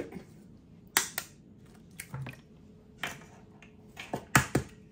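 Eggs being cracked on the rim of a mixing bowl: a few sharp taps and cracks of eggshell, the loudest in a quick cluster near the end.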